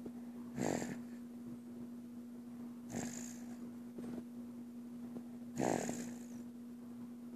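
A baby snoring: three short snores about two and a half seconds apart, over a steady low hum.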